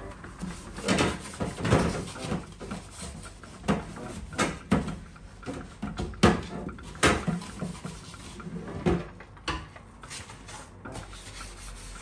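Sponge scrubbing soapy plastic refrigerator shelves and frames in a stainless steel sink: irregular rubbing strokes, with a few sharp knocks as the plastic pieces are handled.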